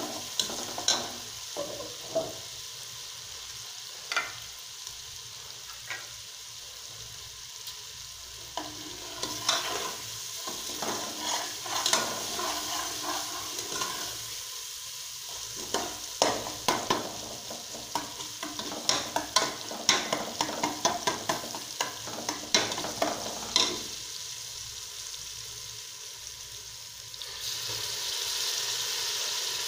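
Browned onion pieces frying in hot oil in an aluminium pressure cooker, a steady sizzle with a steel ladle stirring and scraping, clinking against the pot in quick runs. Near the end the sizzle suddenly grows louder and brighter as rice grains go into the hot oil.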